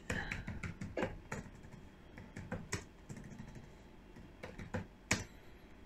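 Computer keyboard being typed on: a slow, irregular run of separate key clicks, the sharpest about five seconds in.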